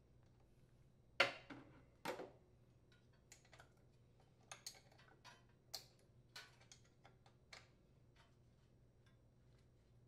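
Faint clicks and taps of hands fitting wiring and a wire retainer around a small engine starter motor: two sharp clicks early, about a second apart, then scattered lighter irregular clicks.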